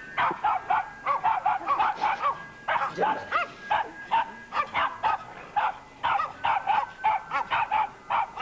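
A dog barking in quick runs of high-pitched yaps, several a second, with short pauses between the runs.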